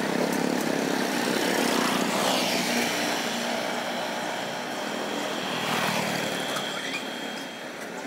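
Motorbike traffic passing along the street, with two bikes going by about two and six seconds in.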